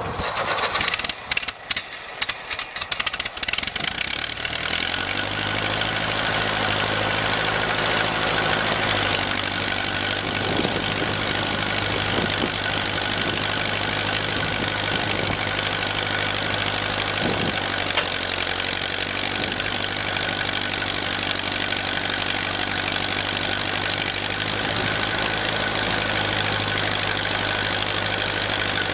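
Ford 2N tractor's four-cylinder flathead engine started cold on its six-volt system: about four seconds of irregular cranking clatter, then it catches and settles into a steady idle.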